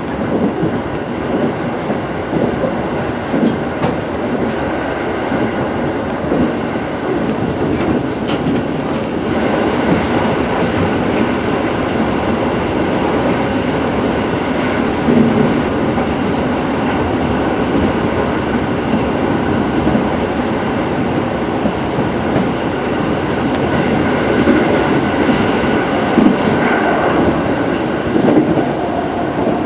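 JR Central 373 series electric multiple unit running at speed, heard from inside the car: a steady rumble of wheels on rail with occasional light clicks from the track, including a stretch through a tunnel.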